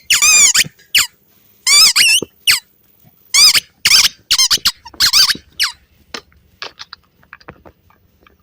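Rubber squeaky dog toy squeaked over and over, about nine loud wavering squeals in the first six seconds, then a few fainter short squeaks.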